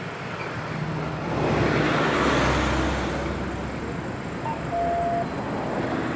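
A car passing by on the street, its noise swelling to a peak about two and a half seconds in and then fading, over steady traffic noise. A short beep comes near the end.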